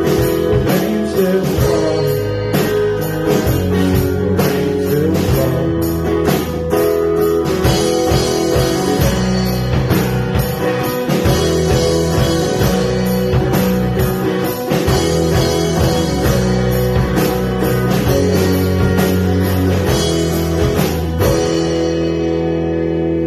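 Small rock band playing live, with guitars and a drum kit. Near the end the drums stop and a last chord rings on as the song ends.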